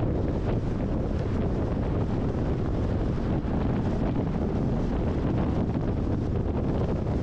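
Steady wind rush and tyre noise of a car driving at highway speed, with wind buffeting the microphone.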